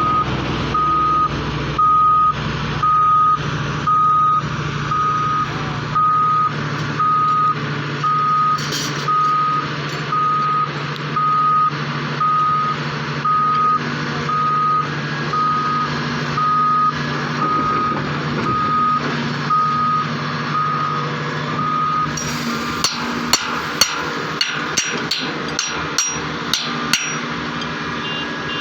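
A vehicle reversing alarm beeping about once a second over the steady running of heavy diesel machinery, stopping about 22 seconds in. A quick string of sharp knocks and clanks follows.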